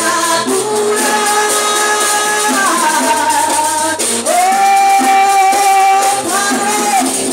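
A woman singing a worship song into a microphone, holding long notes that slide between pitches, over an accompaniment with a steady shaker rhythm.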